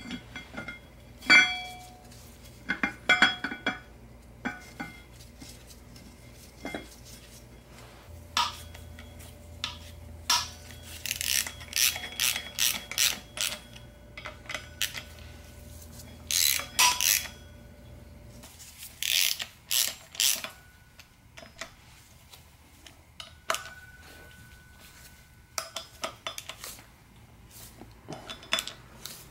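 Hand socket ratchet clicking in quick runs as the flywheel bolts are run in, with scattered metallic clinks of bolts and tools between the runs.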